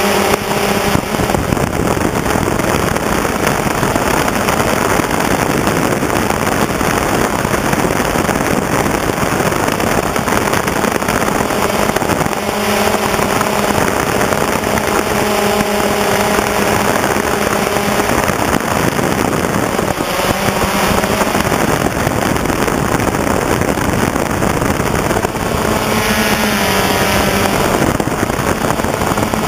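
DJI Phantom quadcopter's electric motors and propellers buzzing, heard close up on board, over heavy wind rush. The pitch of the buzz shifts as the drone manoeuvres.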